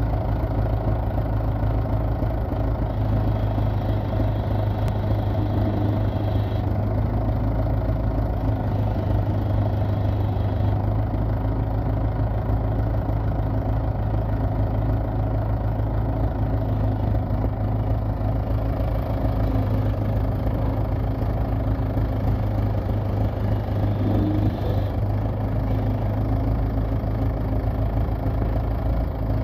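Vintage JCB backhoe loader's diesel engine idling steadily.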